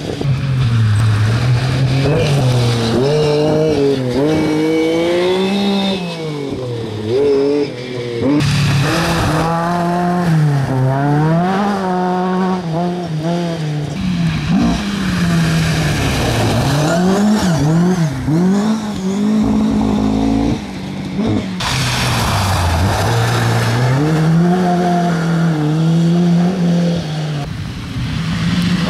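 Rally car engines at full power, the revs repeatedly climbing and dropping back with each gear change. First one car is driven hard away, then, after a break, another car, a Mk2 Ford Escort, comes in from a distance, revving and shifting up as it nears.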